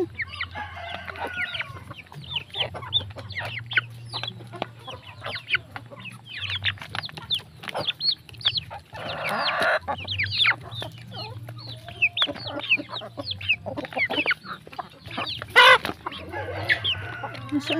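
A flock of hens and young chickens feeding at a bowl: constant clucking and many short, high, falling peeps, with one louder call near the end.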